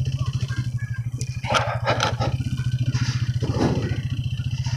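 Motorcycle engine running at low speed, a steady low beat, with brief rushes of wind or road noise.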